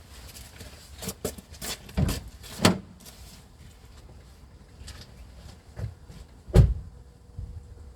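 Metal hand tools clicking and knocking while working on flywheel bolts: a quick run of sharp clicks and clanks in the first three seconds, then a few more, the loudest a knock about six and a half seconds in.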